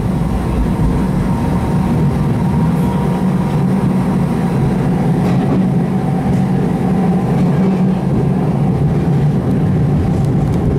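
TECO Line electric streetcar running along its track, heard from inside the car at the front: a steady low rumble.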